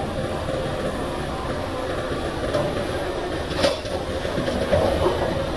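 Komatsu PC500LC hydraulic excavator's diesel engine running steadily under load as it scoops a bucket of rocky soil and swings it up over a dump truck, with one sharp knock about three and a half seconds in.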